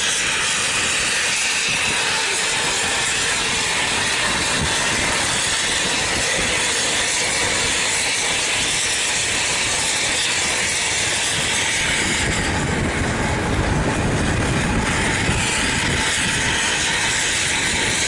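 Steady rushing road noise of wind and tyres while moving close behind a Hino coach, with a deeper engine rumble coming up about twelve seconds in.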